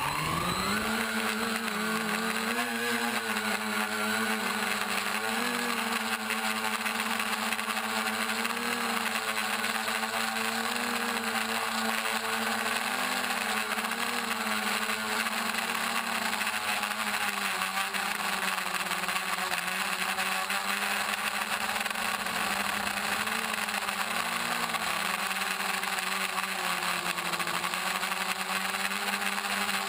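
Brushless motors and propellers of a balsa-frame quadcopter (2836 950 kV outrunners) spooling up sharply right at the start, then a steady whine that wavers up and down in pitch with the throttle in flight, heard from on board.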